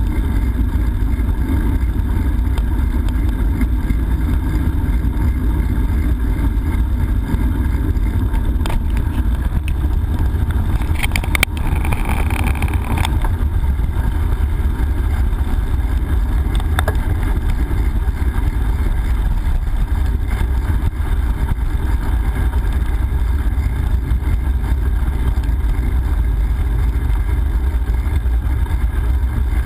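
Steady low wind rumble buffeting the action camera's microphone as the bicycle rides along. About twelve seconds in there are a couple of clicks and a short, higher-pitched sound.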